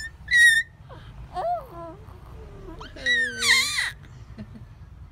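A baby cooing and squealing in a few short bursts: a high squeal near the start, a lower falling coo, then a longer, louder squeal about three seconds in.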